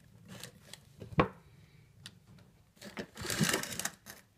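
Handling noise on a wooden workbench as side cutters are picked up and objects moved about: a few light clicks, a sharp knock about a second in, then about a second of scraping near the end.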